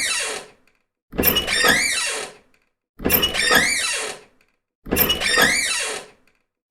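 A squeaky house door creaking open fast, over and over: three full creaks about two seconds apart, each a sharp start followed by a second and a half of wavering squeal, with the end of another at the start and the next one beginning at the very end.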